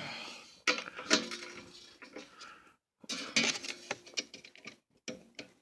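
Irregular metal clinks and taps of hand tools and parts against the transfer case, some ringing briefly, in two clusters about a second in and past the halfway point.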